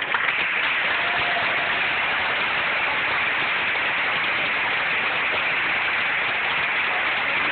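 A crowd of spectators applauding steadily, starting suddenly right at the beginning.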